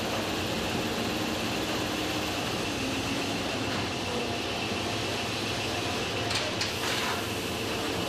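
Steady running noise of production-line machinery and its dust extractor, an even mechanical hum and whir, with a few short hissing bursts about six and a half seconds in.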